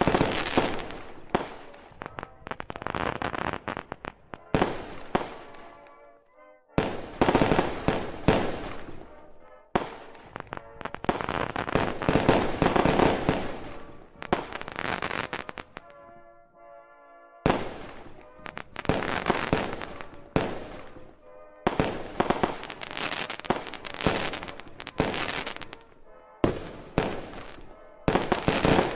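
Aerial fireworks shells bursting in rapid volleys: sharp bangs, each followed by a dense crackle, with short lulls between volleys.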